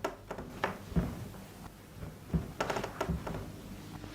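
Knocking: a series of sharp knocks at uneven intervals, with a quick run of knocks a little past halfway, the mysterious knocking that nothing in the concrete room should make.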